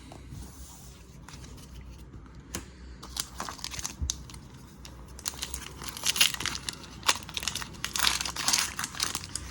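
Foil Pokémon booster pack wrapper being crinkled and torn open by hand, a run of small crackles that grows busier and denser in the second half.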